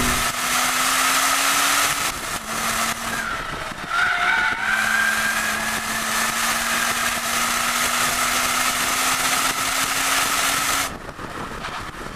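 Wind rush and tyre roar from a BMW M235i at speed on track, picked up by a camera mounted on the car's flank by the front wheel, with a low steady drone underneath. A wavering tyre squeal runs for several seconds in the middle as the car corners, and the noise drops about eleven seconds in.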